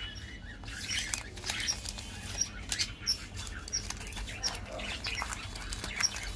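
Crinkling and crackling of a chocolate bar's printed plastic wrapper and inner foil as they are torn and peeled open by hand, with short high bird chirps in the background.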